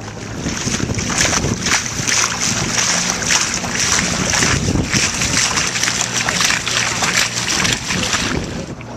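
Water splashing and rushing along the wooden hull of a 45 ft Anglo-Saxon longboat replica as it moves under motor, an uneven hiss that stops shortly before the end. A steady low hum from the boat's motor runs beneath it.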